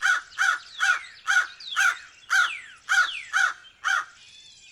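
Crow cawing: a run of about nine short caws, roughly two a second, stopping shortly before the end.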